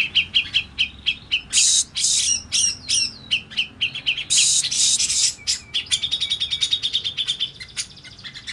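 Grey-cheeked bulbul (cucak jenggot) calling: a rapid string of sharp chirps, broken twice by harsh rasping calls, about a second and a half in and again near the middle. Near the end it runs into a fast chattering trill of higher chirps.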